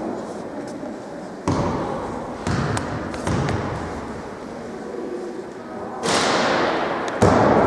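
Basketball play in a large, echoing gym: a few dull thuds of the ball bouncing on the court, then two louder bangs near the end that ring on in the hall.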